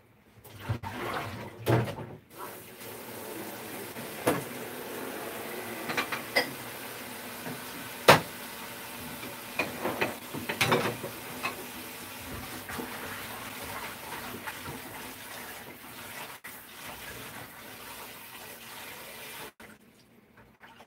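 Kitchen tap running steadily into a sink while celery is rinsed, with a number of sharp knocks and clatters from things handled in the sink, the loudest about eight seconds in. The water starts a couple of seconds in and cuts off suddenly about a second before the end.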